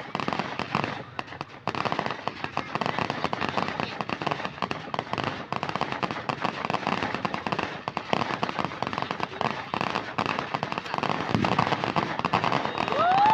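Fireworks crackling and popping in rapid, dense succession, with a whistle rising in pitch near the end.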